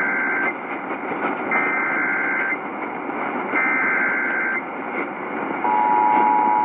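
Emergency Alert System SAME header received over radio static: the tail of one data burst, then two more one-second bursts of fast two-tone warbling, one every two seconds. Near the end the steady two-tone EAS attention signal starts, announcing a flash flood warning.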